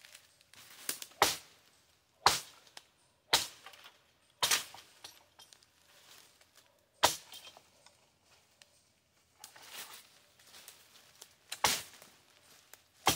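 Cold Steel Warrior Series katana chopping limbs off a felled tree: about seven sharp chops, four of them roughly a second apart, then more spaced out, with fainter sounds between.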